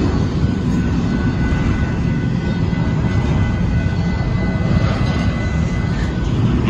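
Union Pacific intermodal freight train rolling past, a steady loud rumble of its cars on the rails.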